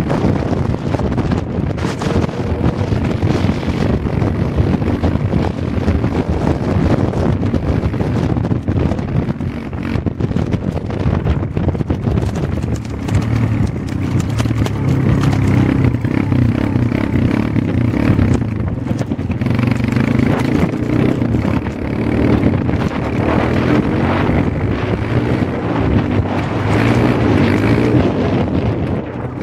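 Motorcycle riding at speed, with wind buffeting the microphone over the steady sound of the engine; the low engine hum comes through more clearly about halfway through.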